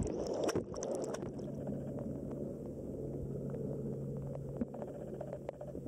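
Muffled low rush of water picked up by a camera held underwater, with a steady low hum and faint scattered clicks. The higher hiss drops away about a second in.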